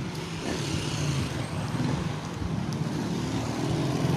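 Road traffic passing, a steady rumble of vehicles, with wind buffeting the microphone.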